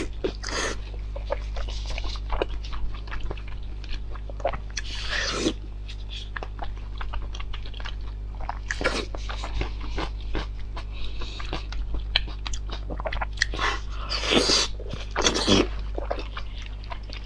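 Close-miked chewing and biting with many sharp crunches and mouth clicks, broken by a few louder breathy swells, over a steady low hum.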